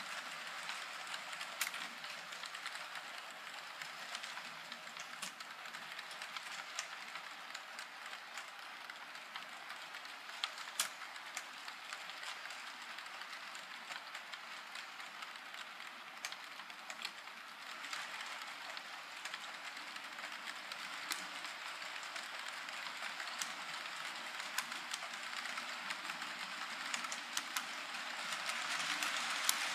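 HO scale model freight train rolling along the layout's track: a steady rolling whir of small metal wheels on rail, with scattered sharp clicks, getting louder near the end.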